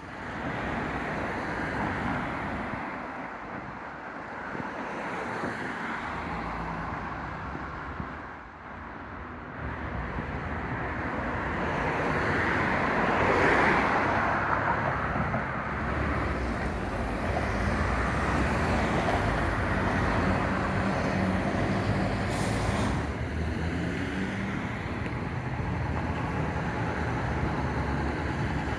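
City street traffic: motor vehicles passing, swelling to a peak about halfway through, with the low hum of a heavy vehicle's engine running through the second half.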